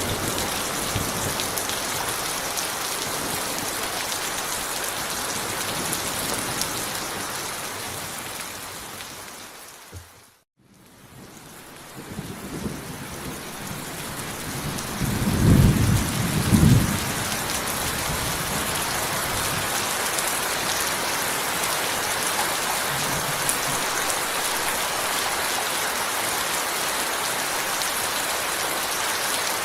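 Steady heavy rain falling. About ten seconds in it fades away to a moment of silence, then rain fades back in. A deep rumble of thunder follows a few seconds later, the loudest sound here, before the rain runs on steadily.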